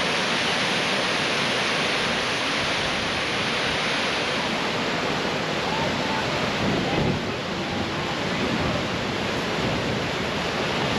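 Sioux Falls waterfall on the Big Sioux River rushing steadily over the rock ledges.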